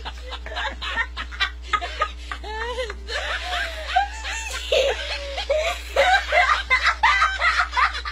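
People laughing in repeated short bursts of chuckling and giggling, over a steady low hum.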